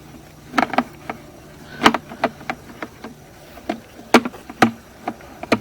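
Sewer inspection camera's push cable being fed by hand down the drain line: a run of irregular sharp clicks and knocks from the rod and reel, over a faint steady hum.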